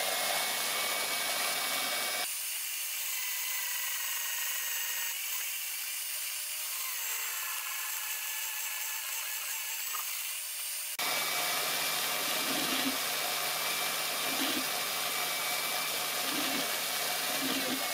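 Electric drill boring holes through steel, running steadily with a high whine, in three stretches that change abruptly about two seconds and eleven seconds in.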